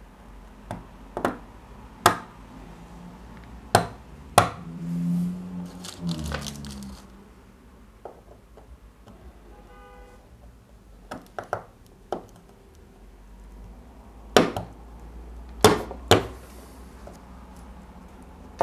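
Sharp, irregular clicks and knocks of steel linear bearings being handled and pressed into a mounting block on a wooden table, a few of them loud.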